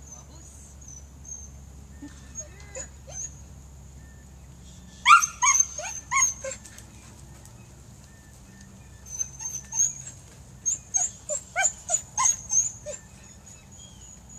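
A dog barking in short, sharp yips: a quick cluster of barks about five seconds in, then a longer run of barks from about nine to thirteen seconds in.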